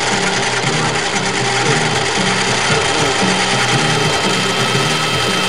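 Industrial noise music: a loud, dense wall of machine-like grinding noise with steady high tones above and a repeating low figure beneath.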